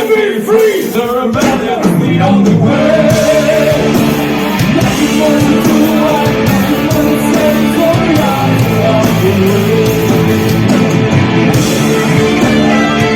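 A rock band playing loud live music, with a voice singing over it in the first couple of seconds.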